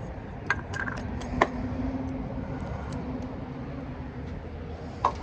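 A few small sharp clicks and taps of a lock cylinder and its spacer being handled and fitted, the sharpest about a second and a half in and another near the end, over a steady low background rumble.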